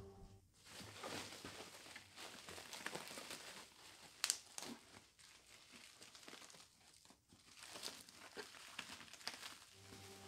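Faint crinkling and tearing of plastic wrap and bubble wrap being pulled off a steel breastplate, with many small crackles and one sharp crack about four seconds in.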